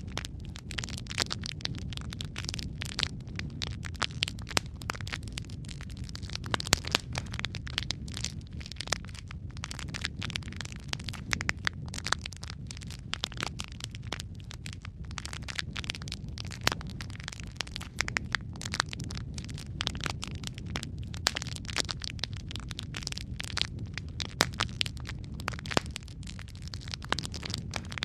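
Wood fire burning in a fireplace: a steady low rumble of flames with constant irregular crackles and pops from the burning logs.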